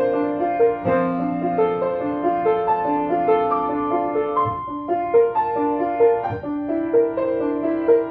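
Grand piano played solo: a steady stream of quick notes over lower held notes.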